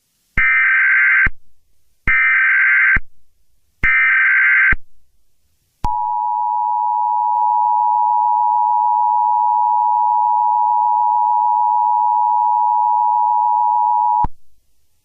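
Emergency Alert System tones: three screeching one-second blasts of SAME header data about a second apart, then the steady two-tone EAS attention signal held for about eight seconds before cutting off sharply. These tones announce the emergency alert message.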